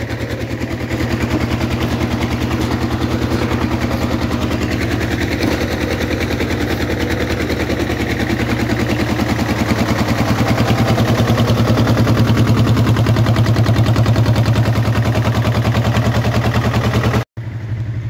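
Diesel garden tractor engine running steadily with an even, fast pulsing chug while towing another tractor on a chain. The sound cuts out for an instant near the end.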